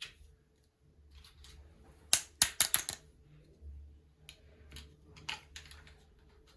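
Small plastic pieces of a miniature toy kitchen set being handled, clicking and tapping against each other. There is a quick run of sharp clicks about two seconds in, then a few scattered clicks.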